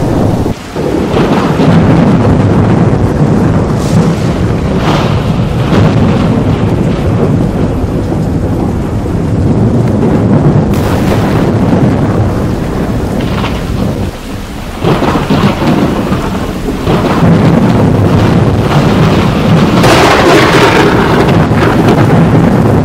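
Thunder rumbling almost without pause, with rain underneath. The rumble drops briefly twice, and there is a sharper, brighter crash about twenty seconds in.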